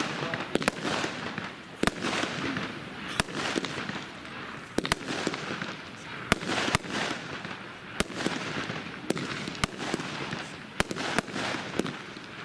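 Velocity street-firework cake firing its tubes one after another: a string of sharp bangs, about one or two a second at uneven spacing, with hissing between them.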